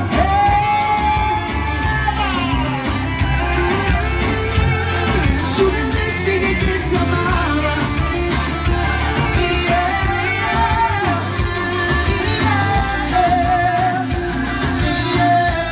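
Live band performance: a male vocalist singing into a microphone over electric guitar and a heavy bass beat, holding long, wavering notes near the start and again near the end.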